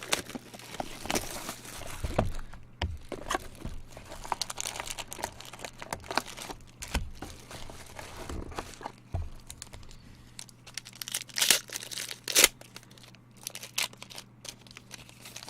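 Trading card pack wrappers crinkling and tearing as packs are opened, with cards being handled. There are irregular crackles throughout and two sharper, louder crackles about eleven and twelve seconds in.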